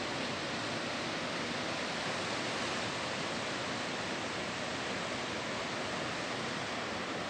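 Steady, even rush of surf breaking along a sandy, rocky beach, with no separate wave crashes standing out.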